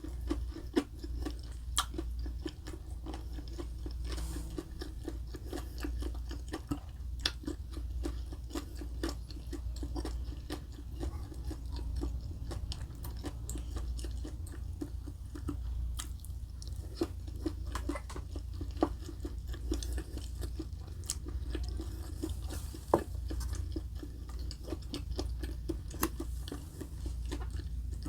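Close-miked chewing of food, wet and crunchy, with frequent sharp clicks of bites and mouth sounds, over a steady low hum.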